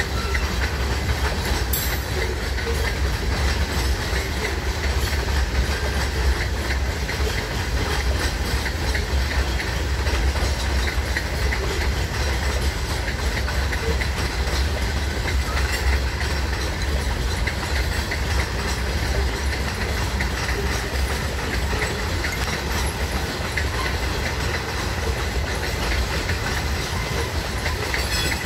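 Covered hopper freight cars rolling past on the rails: a steady low rumble with rapid clicks and clacks from the wheels.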